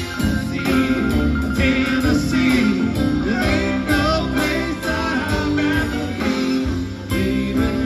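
Live band playing: electric guitars, bass guitar, drum kit and keyboard.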